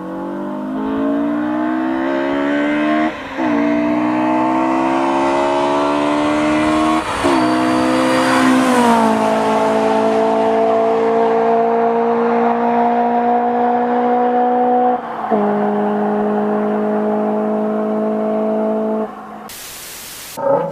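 A person imitating a car engine with their voice: a rising engine drone broken twice by short gear-change gaps, then a held steady pitch that steps down once.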